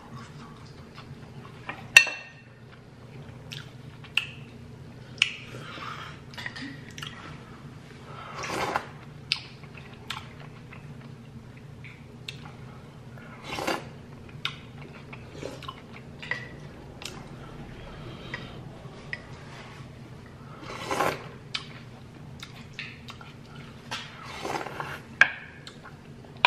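Close-up eating of crispy cheesy birria tacos: chewing and biting with wet mouth sounds, scattered sharp clicks of the spoon and dishes, the loudest about two seconds in. About halfway through, a spoonful of consomé is sipped from the spoon.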